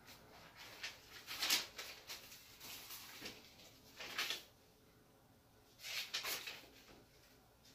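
Handling and rustling noises from someone moving things about off-camera: about four short bursts a second or two apart.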